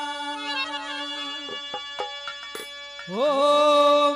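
Haryanvi ragni folk music: a steady held note fades out, a few sharp drum strokes follow, and then a loud note slides up and is held from about three seconds in.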